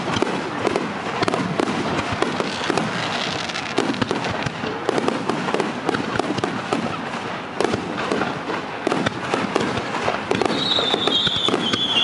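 Barrage of aerial firework shells bursting in quick succession, a dense, unbroken run of booms and crackle. Near the end a high whistle comes in and falls slowly in pitch.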